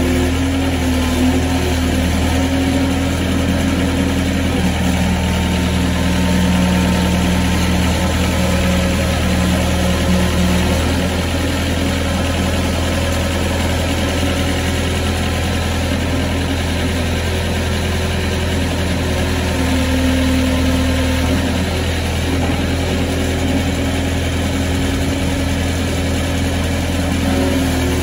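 John Deere CT322 compact track loader's diesel engine running steadily as the machine drives on its tracks and raises its lift arms.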